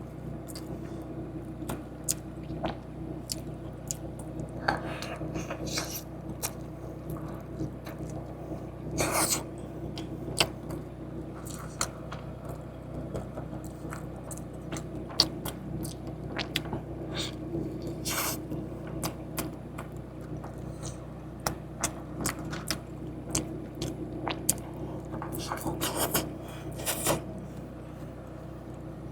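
Close-up eating sounds: chewing, with frequent short scrapes and clicks over a steady low hum.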